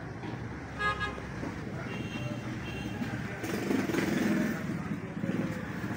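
Road traffic: a short horn beep about a second in, then a motor vehicle's engine growing louder in the second half.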